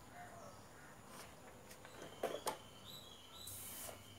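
Two sharp knocks just after two seconds in, from parts being handled on the workbench. A bird then calls with a repeating, stepped chirp in the background.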